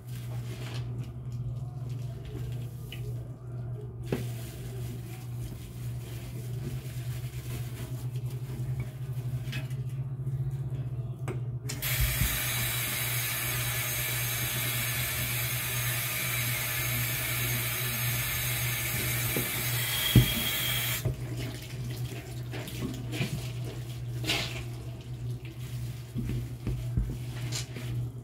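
Bathroom sink tap turned on, water running into the basin for about nine seconds, then shut off. A sharp knock comes just before the water stops, and a steady low hum runs underneath throughout.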